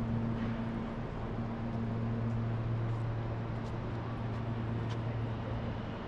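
Steady low hum of a motor vehicle engine running at constant speed, with a few faint ticks.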